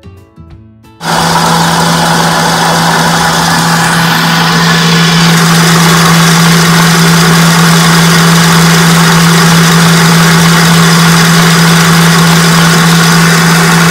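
Red KitchenAid stand mixer whisking cream-cheese filling in its steel bowl. It switches on about a second in and runs steadily with a constant motor hum.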